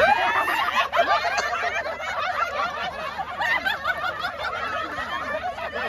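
A group of people laughing and shrieking together, many voices overlapping in a continuous, high-pitched clamour.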